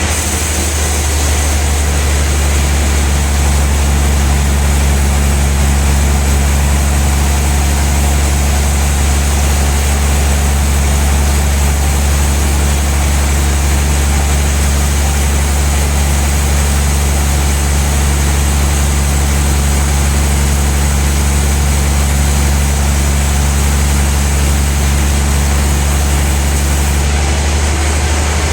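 Large log band sawmill running steadily: a loud low drone from the machine with an even hiss of blade noise above it.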